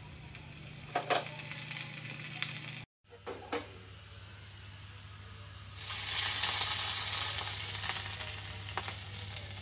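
Garlic and dried red chillies frying in hot mustard oil in a small tadka pan, sizzling steadily. It breaks off briefly near the third second, and from about six seconds in a much louder sizzle as the hot tempering is poured onto the cooked spinach.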